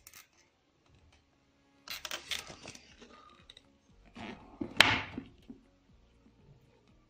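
Plate and pink plastic bowl clattering and scraping against each other as the bowl of steamed caramel custard is flipped upside down onto the plate. Two spells of handling noise, the second louder with a sharp knock about five seconds in.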